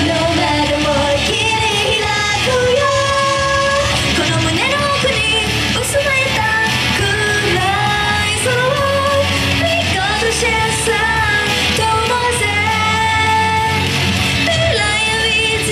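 Idol pop song performed live: a sung vocal line over loud, dense pop music from the stage sound system, with no break.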